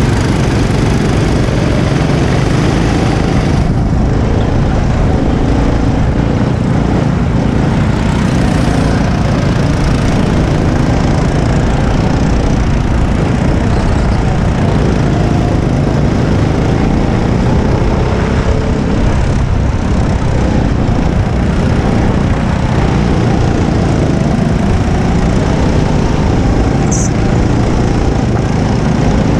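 Go-kart engine running hard at speed, heard from on board the kart. Its pitch rises and falls slightly with the throttle.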